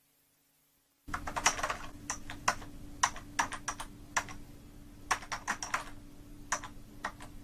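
Typing on a computer keyboard: irregular quick key clicks that start about a second in, over a steady low hum.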